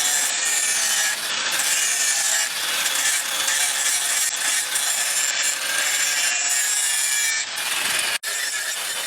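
Steady abrasive scraping of a tool worked against a surface, the sound of filing, rasping or sanding, with a brief sharp break about eight seconds in.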